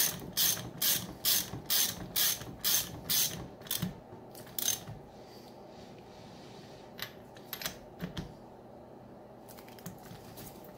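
Socket ratchet clicking in quick, evenly spaced strokes, about two a second, as the rear axle nut is run down. The strokes stop about five seconds in, and a few light clicks follow.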